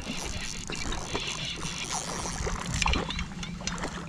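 A spinning reel is cranked to retrieve line against a hooked largemouth bass. The steady mechanical whir comes with many short sharp clicks.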